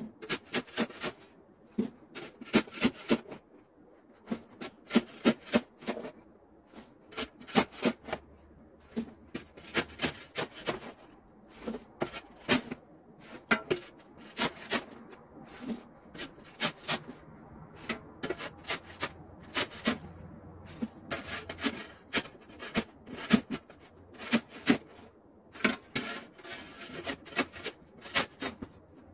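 Metal snow shovel scraping across packed snow and scooping it up, in repeated short rasping strokes that come in quick clusters of two to four.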